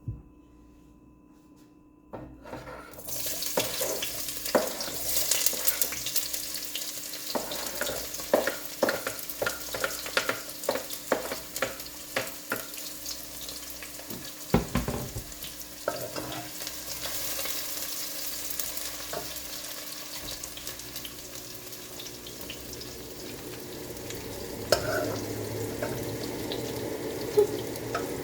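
Food going into hot oil in a frying pan: quiet at first, then a sudden loud sizzle about two seconds in that keeps up, with many clicks, knocks and scrapes of a metal utensil stirring in the pan.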